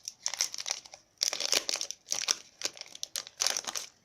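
Foil wrapper of a Pokémon TCG booster pack crinkling in several bursts as it is worked open by hand. The pack is proving hard to open.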